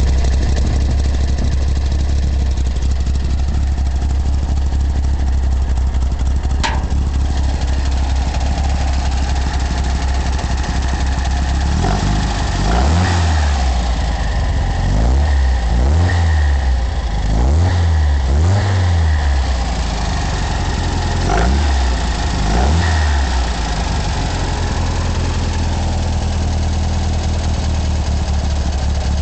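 1974 VW Beetle's air-cooled flat-four (1641cc, Engle 110 cam, G03 heads) running through a large aftermarket muffler. It idles steadily, then is revved quickly six or seven times, each rev rising and dropping back, before settling to idle again.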